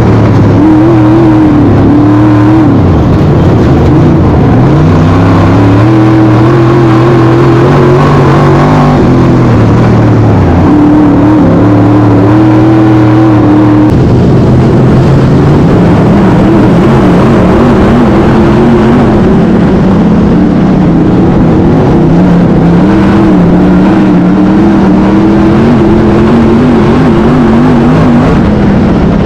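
Race car engines running flat out in a dirt-track feature race, very loud, the pitch repeatedly rising and dropping as the cars speed up and lift off.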